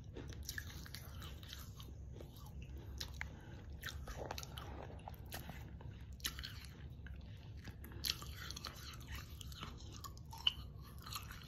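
A person chewing dry Mexican clay pot pieces: gritty crunches at an irregular pace, with a few louder cracks, the sharpest near the end.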